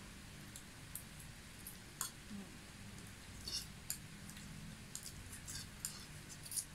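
Metal forks clinking and scraping on ceramic plates while spicy instant noodles are eaten, a scatter of short sharp clicks about once a second with soft eating sounds, over a low steady hum.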